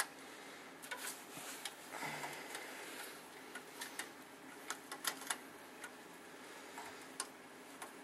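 Screwdriver turning mounting screws into a hard drive's metal caddy: faint, irregular small clicks and ticks.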